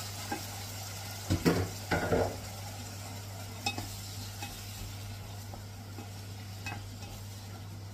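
A wooden spoon stirring in a speckled non-stick pot, with a cluster of knocks and scrapes against the pot about a second and a half in and a few light taps later, over a steady sizzle of food cooking.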